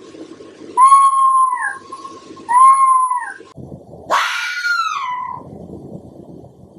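Red fox calling: three long, high-pitched calls of about a second each, each held steady and then dropping away at the end; the third is the loudest and rougher.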